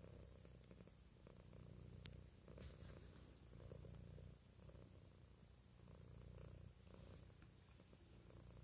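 A grey cat purring steadily, a low rumble that swells and eases in waves every second and a half or so.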